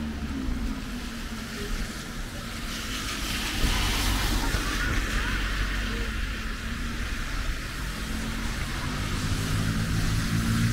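Heavy rain on a wet street with a car driving past on the soaked road, its tyres hissing through the water, loudest about four seconds in.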